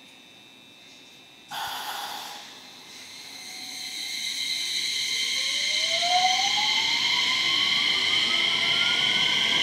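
JR West 227 series electric train pulling away from a standstill: a sudden short hiss about a second and a half in, then the traction motors' electronic whine rising steadily in pitch as the train gathers speed, with steady high tones above it and growing louder.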